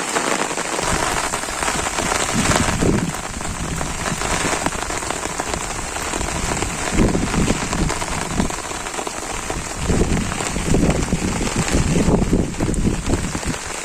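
Steady rain falling, an even hiss, with irregular low rumbles coming and going.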